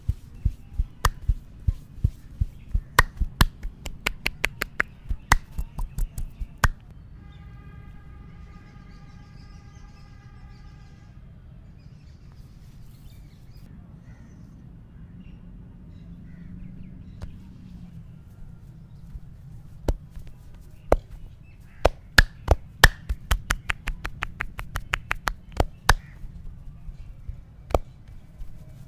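Head massage percussion: quick rhythmic runs of sharp hand slaps and claps, about three a second, in one burst at the start and another about two-thirds through, with a quieter stretch between.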